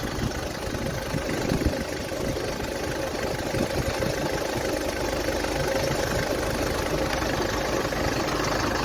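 Sprinter van engine idling steadily while it warms up, just after a new thermostat was fitted and the cooling system flushed.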